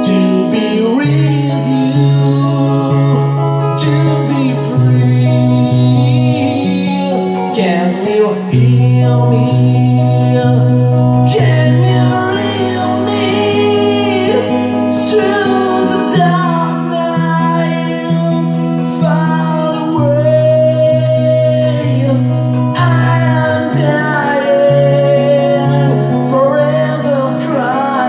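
PRS electric guitar playing a lead melody with long, bending, wavering notes over a backing track of steady bass notes that change about every two seconds.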